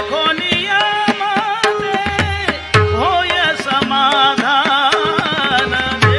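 Tabla playing a quick, busy rhythm with deep bass strokes under a held melodic accompaniment, in an interlude of a Marathi devotional song (gavlan).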